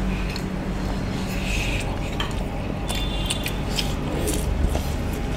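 Close-miked eating sounds: chewing, with chopsticks and cutlery clicking against ceramic bowls, over a steady low hum.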